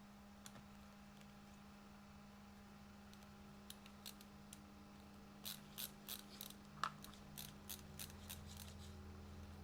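Faint metallic clicks of a small screw being driven with a screwdriver to fix the servo horn to the steering servo. A few scattered clicks come first, then a quicker run of about three clicks a second from about halfway in, over a steady low hum.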